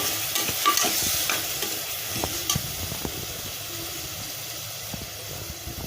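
Ginger-garlic paste frying in hot oil, sizzling steadily, with a spoon stirring and scraping the pan in the first couple of seconds.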